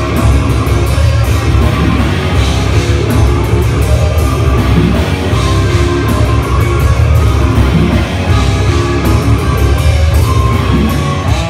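Heavy metal band playing live at full volume: distorted electric guitar and bass over a drum kit, with runs of quick cymbal and snare hits.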